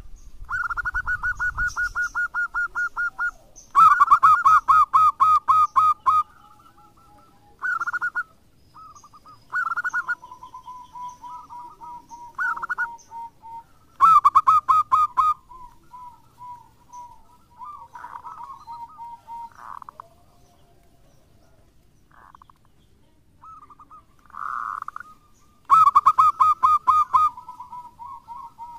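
Zebra dove (perkutut) singing its song, bouts of rapid staccato cooing notes. The loudest bouts come about 4, 14 and 26 seconds in, with softer broken phrases between.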